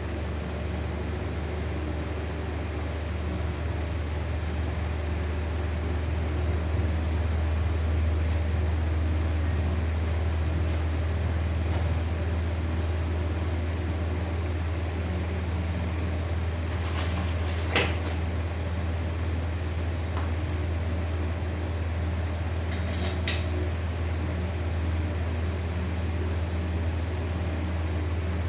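A steady low hum, with a short cluster of sharp clicks a little past the middle and one more click a few seconds later.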